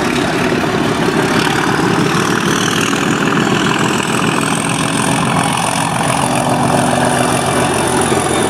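Class 37 diesel locomotive's English Electric V12 engine working hard as the train pulls away, with a turbocharger whistle rising in pitch over the first few seconds and then holding high.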